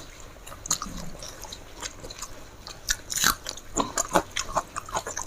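A person chewing a meal of chicken curry and rice close to the microphone, with short irregular wet mouth clicks and smacks.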